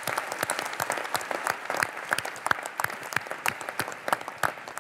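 Large audience applauding with dense, many-handed clapping that thins out and grows quieter toward the end.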